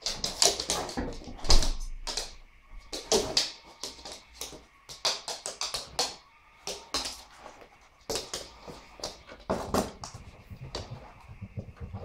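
A dog moving about at close range, making short, irregular noisy sounds, roughly one or two a second.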